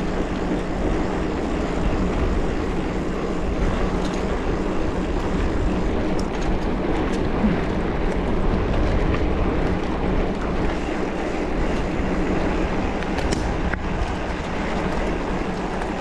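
Steady wind rumble over the microphone and tyre noise from a mountain bike riding along, with a few faint ticks and rattles.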